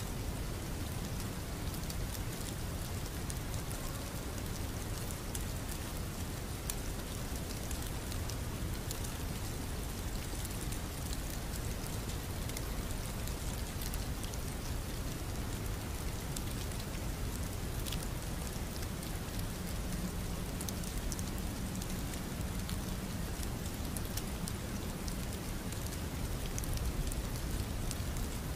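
Steady rain ambience: an even hiss of rainfall with a fine patter of drops.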